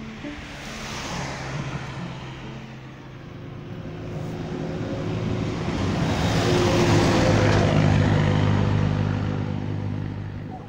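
A car driving by: engine and tyre noise swells as it approaches, is loudest about seven seconds in, then fades away.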